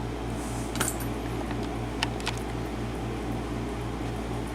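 A few light metallic clicks of small brass lock pins and spools being handled, over a steady, evenly pulsing fan-like hum.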